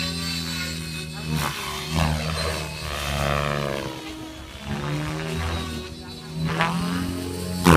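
A radio-controlled model aircraft's motor runs at a high, steady pitch as the model flies overhead, the pitch rising and falling as it passes and turns. A sharp bump comes near the end.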